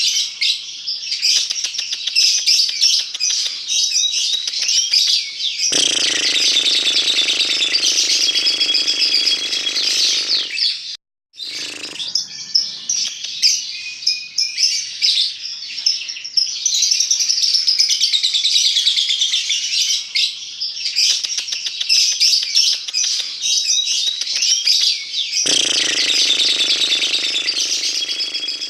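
Lovebird chattering: a continuous run of rapid, high chirps and trills, cutting out briefly about eleven seconds in. A lower drone joins underneath twice, for a few seconds each time.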